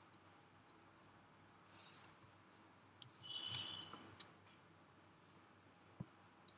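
Faint, scattered clicks of a computer mouse and keyboard, about a dozen spread unevenly, with a brief rustle about three and a half seconds in.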